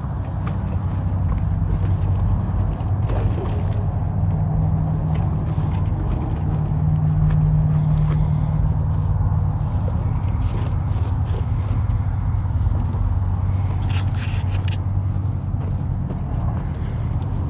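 Steady low machine hum, with a brief clatter about fourteen seconds in.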